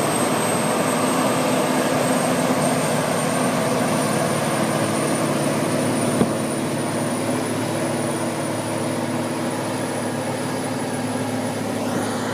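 A large engine running steadily, with a thin high whine above it that rises slightly about four seconds in.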